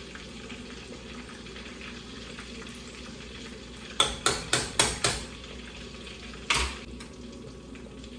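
Battered flounder deep-frying in hot grease in a pot, a steady sizzle. A little past halfway there are five quick sharp taps of a utensil against the pot, followed by one short scrape.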